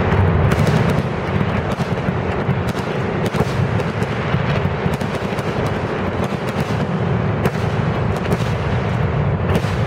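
Aerial fireworks shells bursting in quick, overlapping succession during a fireworks display. The sharp reports follow each other densely over a continuous low rumble.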